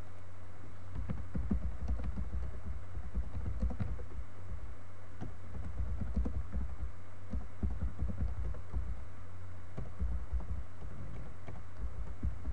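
Typing on a computer keyboard: irregular runs of keystrokes starting about a second in, over a steady low hum.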